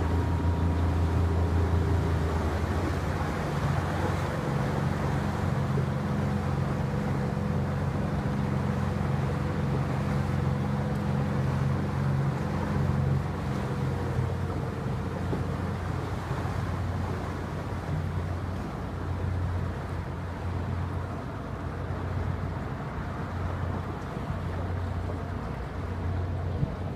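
Boat engine running with a steady low hum, under wind and water noise. The higher tones of the hum fade out a little past halfway, leaving the deep hum.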